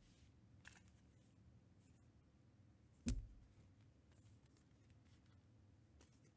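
Near silence with faint handling of trading cards, and one sharp tap about three seconds in.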